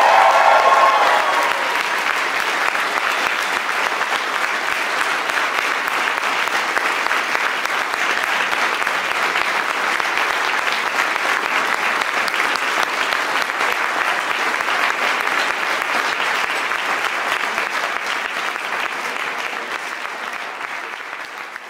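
Concert audience applauding steadily, then dying away near the end.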